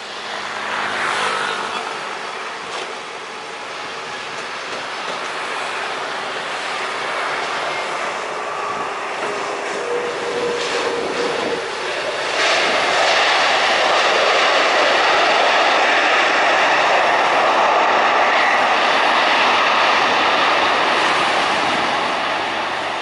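Twin-engine widebody jet airliner landing: steady jet engine noise as it comes in on approach, then, about halfway through, a sudden jump to louder, steady jet noise as it rolls along the runway, easing slightly near the end.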